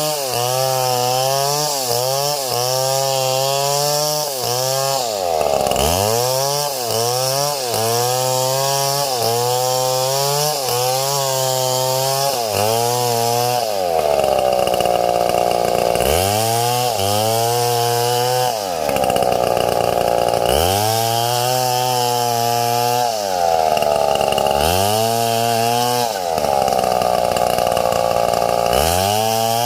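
Chainsaw running hard while cutting wood. Its engine pitch sags and recovers in quick pulses about once a second, then from about halfway in it sags more deeply in longer dips of about two seconds at a time.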